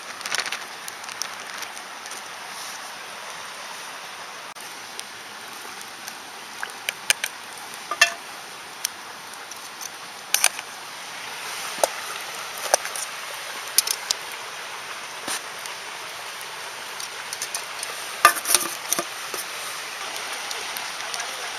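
Campfire of frozen driftwood burning: a steady hiss with scattered sharp pops and crackles, a dozen or so, irregularly spaced.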